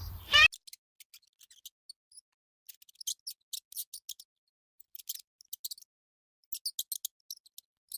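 The end of a goat's bleat, cut off abruptly about half a second in, followed by sparse, irregular high-pitched clicks and scratches.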